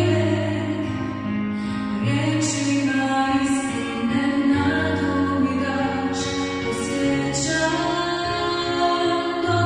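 A woman singing with Yamaha electronic keyboard accompaniment, the keyboard's bass notes held and changing every second or two under her long sung lines.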